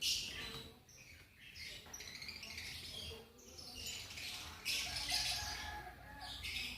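Lovebirds chirping and chattering in repeated shrill bursts, loudest about five seconds in.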